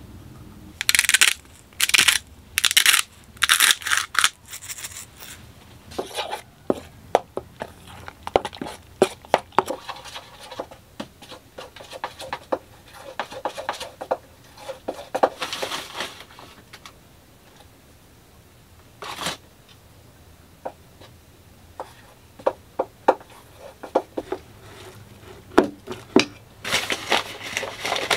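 A utensil scraping and tapping against a stainless steel mixing bowl as flour and water are stirred into pizza dough: a string of sharp clicks and short scrapes, with a few rustling hisses in the first few seconds and again near the end.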